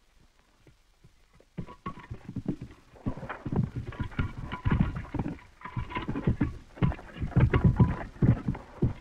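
Rapid, irregular knocking and clattering, starting suddenly about one and a half seconds in and going on in dense clusters of knocks.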